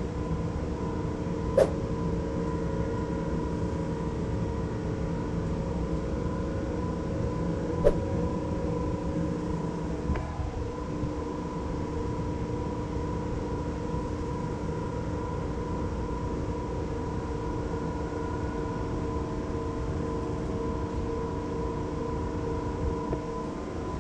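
Steady drone of a ship's running diesel generators and engine-room machinery, heard from inside the engine control room, with several steady hum tones over a low rumble. Two sharp clicks, one about 2 seconds in and one about 8 seconds in.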